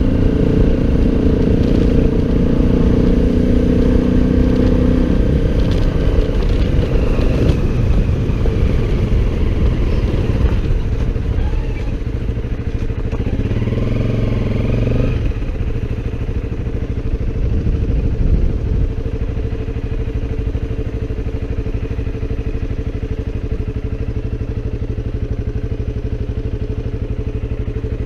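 Motorcycle engine running while riding. Its note changes a few times and drops at about the halfway point, after which it runs steadily at lower revs.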